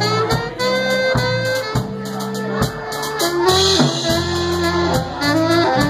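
Saxophone playing a melody of long held notes that slide between pitches, over a low bass line and light drum strokes.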